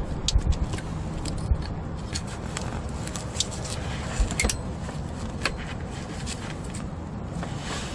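Scattered light metallic clicks and clinks of hand tools and parts during work on an engine bay, over a steady low background rumble.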